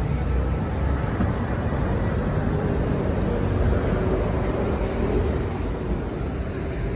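Steady rumble and hiss of a vehicle in motion, holding even throughout.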